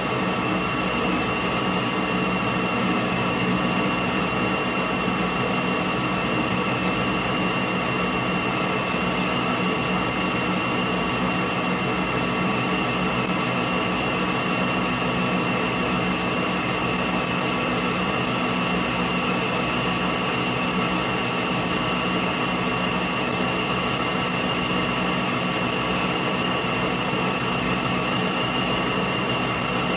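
Metal lathe running steadily, boring a bullet mold cavity with a small boring bar: an even mechanical hum with a steady high whine.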